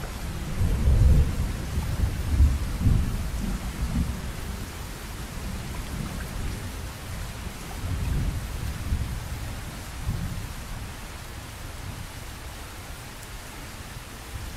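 Heavy rain pouring steadily, with deep rolls of thunder rumbling loudest in the first few seconds and again about eight and ten seconds in.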